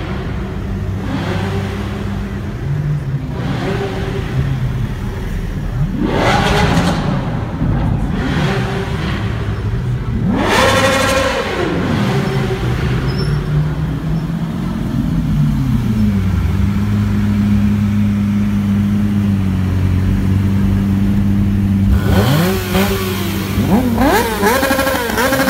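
Sports car engines idling in slow traffic, with a rev about six seconds in and a louder rev that climbs and falls about eleven seconds in. Near the end a sport motorcycle's engine is blipped repeatedly, in quick rising-and-falling revs.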